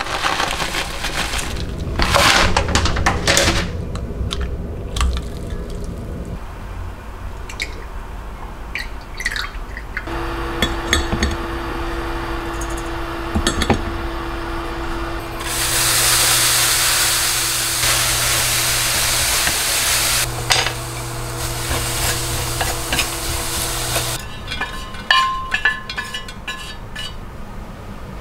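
Kitchen handling: a stainless mesh strainer clinking against a glass measuring cup and water sloshing as dried anchovies are soaked to draw out their salt. Through the middle there is a steady low hum, with a loud rushing hiss lasting about five seconds.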